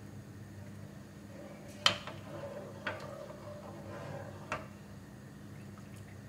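A wooden spoon stirring milk cream in a metal cooking pot, knocking against the side of the pot three times, the first, about two seconds in, the loudest, with soft stirring sounds between.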